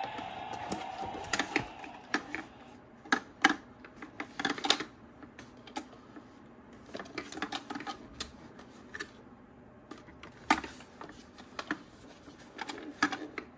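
A hard plastic Lightning McQueen bubble RC toy car being handled: scattered clicks, taps and light scrapes in small clusters as it is lifted out of its cardboard box and turned in the hands.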